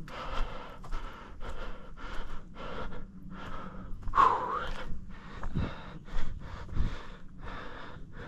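A runner breathing hard and rhythmically, about two breaths a second, with one louder voiced gasp about four seconds in.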